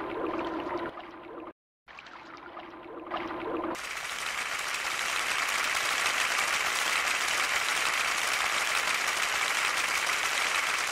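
Electronic soundtrack played on a Korg M50 keyboard: a held low tone under a light hiss, cut off briefly about a second and a half in. Then, from about four seconds, a steady rushing noise like running water that swells a little and holds until the end.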